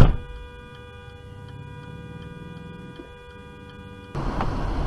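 A sharp thump at the very start, then a car's indicator relay ticking steadily about three times a second over a faint steady pitched tone. About four seconds in, louder road and engine noise cuts in abruptly.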